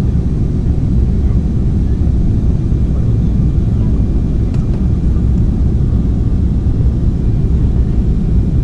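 Steady low rumble of jet airliner cabin noise, engines and rushing air heard from a window seat, as the plane descends.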